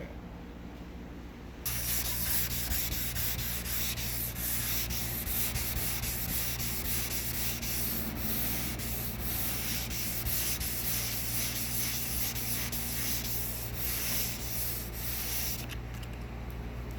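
Dual-action (DA) orbital sander running against car paint, sanding down key scratches. The motor's steady hum and the scraping of the pad start suddenly about two seconds in; near the end the scraping drops away while the motor keeps running.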